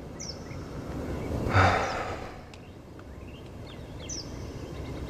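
A man's long breathy sigh, swelling and fading about a second and a half in, over a steady outdoor hiss with a few faint, short, high bird chirps.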